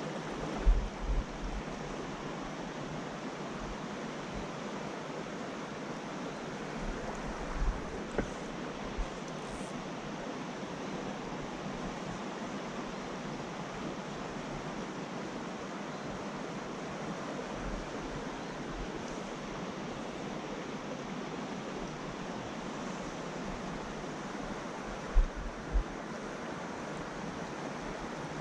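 Small trout creek's water rushing steadily over shallow riffles, an even wash. A few brief low thumps of wind or handling hit the microphone about a second in, around eight seconds in, and near the end.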